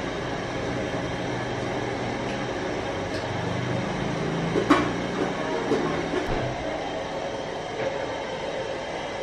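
Steady low rumble, with a sharp metallic clank about four and a half seconds in and a few lighter knocks after it, as an aluminium pot lid is handled over a cooking pot.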